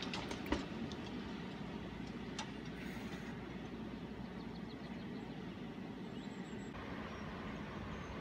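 Steady rush of river water pouring over a weir, with a few sharp clatters of falling debris in the first half second as a blast plume settles.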